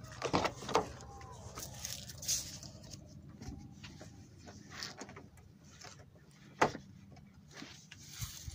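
A car door being opened and someone climbing into the car: a few clicks of the door handle and latch near the start, then scattered knocks and rustling, with one sharp knock about six and a half seconds in.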